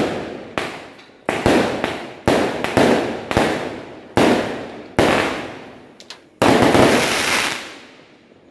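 Aerial fireworks bursting overhead in quick succession: about a dozen sharp bangs, each trailing off in a rumble. About six and a half seconds in comes a longer, sustained burst that fades away near the end.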